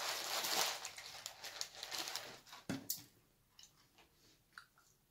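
Paper food wrappers rustling and crinkling as a burger and fries are handled, for about three seconds, then a few faint scattered clicks of eating.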